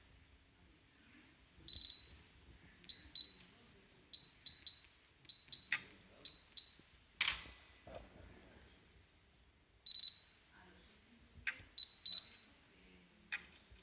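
Short high electronic beeps from a Topcon MS05 total station, some single and some in quick pairs or triplets, with two slightly longer beeps. A few sharp clicks fall in between, the loudest about halfway through.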